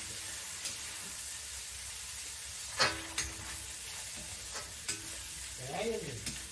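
Light clicks and knocks of metal kitchen utensils being handled, over a steady hiss. Two of the knocks are followed by a short ringing note, like a metal pot or kadhai being set down.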